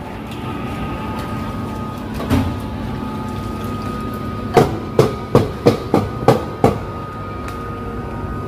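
Kitchen clatter at an udon serving counter over a steady hum: one clack about two seconds in, then a quick run of about seven sharp knocks, roughly three a second.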